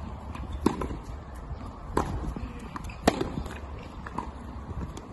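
Tennis ball struck by rackets and bouncing on a hard court during a rally: sharp pops, the three loudest about a second apart, with lighter taps and shoe steps between, over a low steady rumble.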